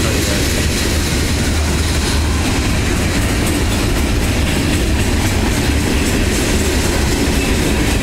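Mixed freight cars of a CSX manifest train rolling past at speed: a loud, steady rumble of steel wheels on rail.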